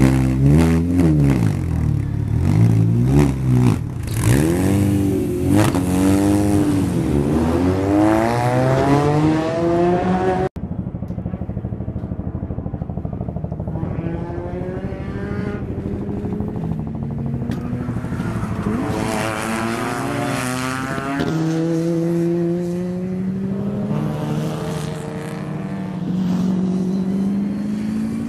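Twin-engine Mini Cooper race car revved repeatedly while standing still, the engine pitch rising and falling with each blip. About ten seconds in the sound cuts to the car running at speed, with the pitch climbing through the gears and dropping on the shifts.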